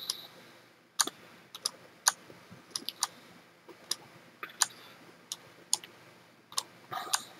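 Computer mouse clicking: short sharp clicks at irregular intervals, some in quick pairs, about two a second on average.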